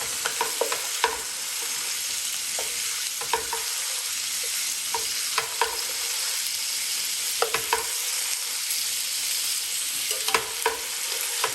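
Chicken pieces frying in hot oil in a pan: a steady sizzle with scattered pops and crackles. The second side of the bone-in, skin-on thighs and drumsticks is browning after being turned.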